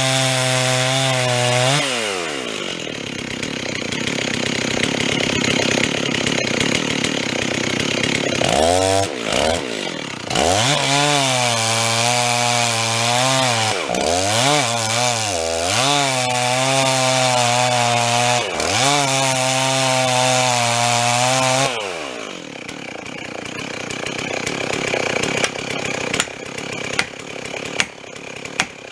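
Chainsaw running and cutting wood, its engine revving up and down under load. About three quarters of the way through, the engine sound drops away, and a few sharp knocks follow near the end.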